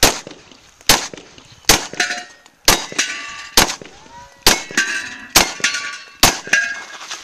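Eight shots from a Glock 34 9mm pistol, a little under a second apart, several of them followed by the ringing clang of a steel plate target being hit.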